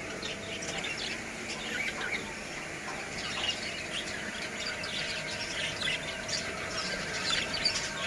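A flock of budgerigars chattering, with many short, overlapping chirps.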